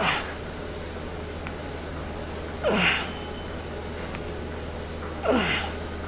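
A man's forceful exhalations with a short falling grunt, three of them about two and a half seconds apart, one on each rep of a single-arm cable lat pulldown. A steady low hum runs underneath.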